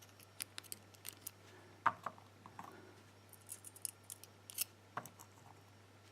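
Small, sharp metallic clicks and ticks of tiny steel pins and tools being handled while driver pins are inserted into the chambers of a pin-tumbler euro-cylinder lock, with two louder knocks about two seconds and five seconds in.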